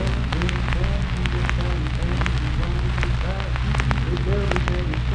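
Archival field recording of a spiritual: singing voices, faint under dense surface crackle and a steady low hum from the old disc.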